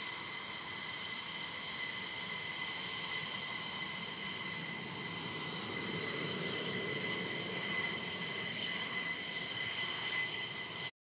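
F-15E Strike Eagle's twin jet engines at low taxi power: a steady high whine over a rushing noise, swelling slightly around the middle. The sound cuts off suddenly near the end.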